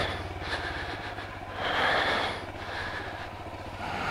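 Royal Enfield Himalayan's single-cylinder engine running at low revs on a muddy off-road track, with a rushing swell of noise about two seconds in.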